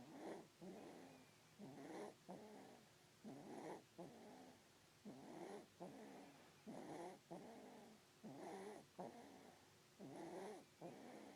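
A baby snoring faintly in sleep, with a pitched snore on each breath, about one breath every second and a half to two seconds.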